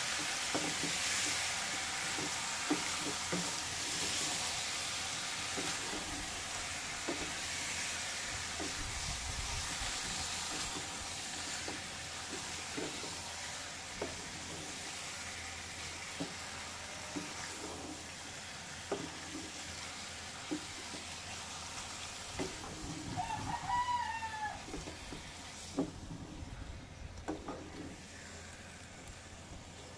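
Beef pieces sizzling in a pot as they are stirred with a wooden spatula, with scattered knocks of the spatula on the pot; the sizzle slowly fades. A rooster crows once about three-quarters of the way through.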